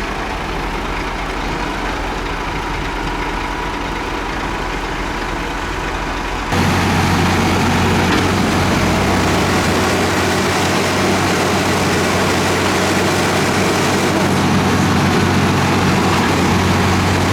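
Heavy diesel engines of earthmoving machines running steadily. About six and a half seconds in, the sound switches abruptly to a louder engine with a different steady pitch.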